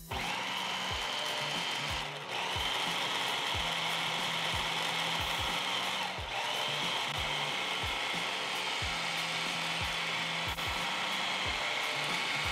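Food processor motor whirring as its blade chops a load of fresh herbs, chilies, garlic and ginger. It pauses briefly about two seconds in and again about six seconds in, spinning back up each time.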